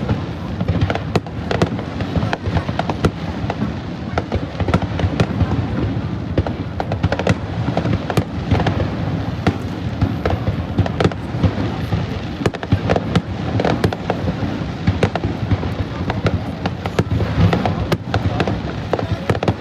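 Fireworks going off in a continuous barrage of irregular cracks and bangs, heard over a dense crowd noise.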